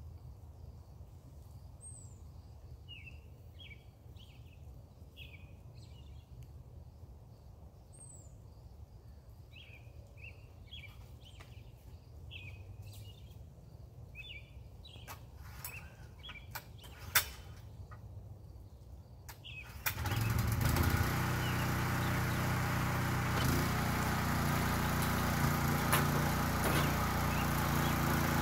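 Small birds chirping, then a few clicks and one sharp knock; about twenty seconds in, a gas rototiller's engine starts and runs steadily.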